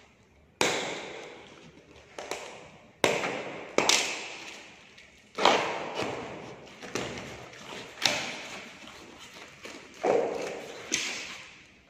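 Plastic packing straps being cut on a cardboard battery carton and the cardboard flaps pulled open: a string of sudden thuds and cardboard scrapes, about one a second, each fading away.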